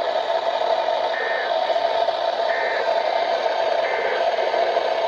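Three short warbling data bursts, about a second and a half apart, typical of the Emergency Alert System end-of-message code sent at the close of a weather radio alert. They play over steady radio static hiss from a weather radio receiver.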